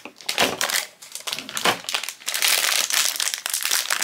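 Foil blind-bag packaging crinkling and crumpling in irregular bursts as it is torn open and pulled apart by hand.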